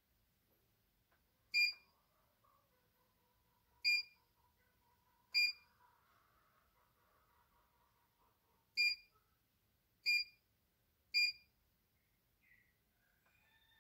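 CNY E900 embroidery machine's control panel beeping as its keys are pressed, one beep confirming each press: six short, high beeps at uneven intervals.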